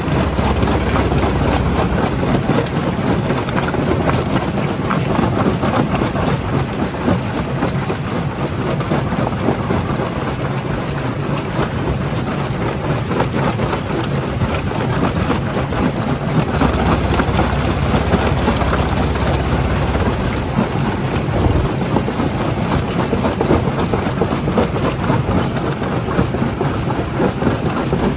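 Primary jaw crusher crushing rock: a steady, dense rumble of stone cracking and grinding over the low hum of the running machinery.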